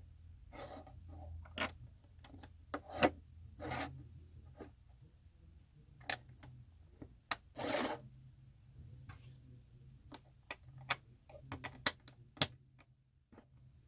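LEGO bricks being handled and pressed together: irregular sharp clicks mixed with short rubbing and scraping sounds of pieces being picked through and fitted.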